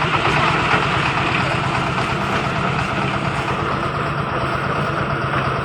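Concrete mixer machine running steadily, its engine and turning drum making a continuous loud mechanical noise.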